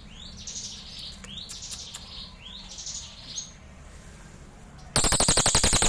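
A crested jay (cililin) calling: a string of rising, swooping notes about one every two-thirds of a second. Then, about five seconds in, a much louder, fast rattle begins.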